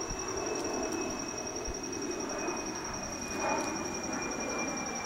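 A steady high insect trill with a low, even rumble like distant traffic beneath it. A few faint clicks of small metal starter parts being handled.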